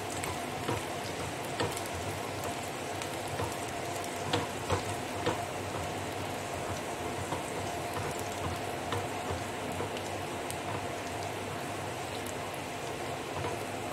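Chopped ginger and garlic sizzling in a little hot oil in a steel kadai: a steady frying hiss with scattered small pops and crackles as they turn golden.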